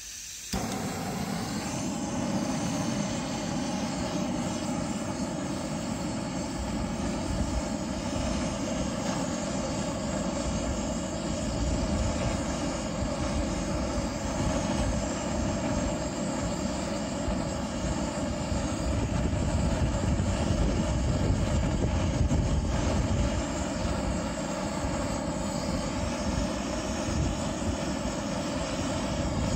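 Handheld butane torch lit about half a second in, then burning with a steady rushing hiss as its flame is held on charcoal briquettes to light them.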